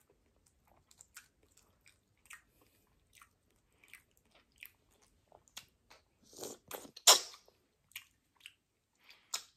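Close-up eating sounds of boiled shrimp: chewing with scattered wet mouth clicks and smacks. A few louder smacks come about seven seconds in.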